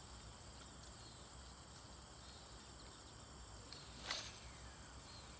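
Steady high-pitched chorus of crickets or other insects. About four seconds in, a short swish as a fishing rod is cast.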